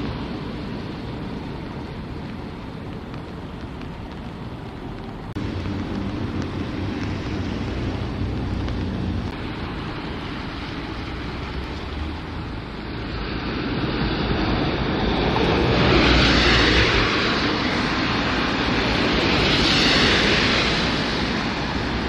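Traffic noise: a low steady rumble with two swelling hisses of vehicles passing on a wet road in the second half.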